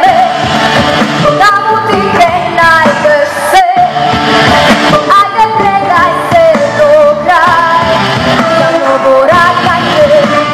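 A girl singing a pop ballad into a microphone over amplified backing music, holding long notes with vibrato.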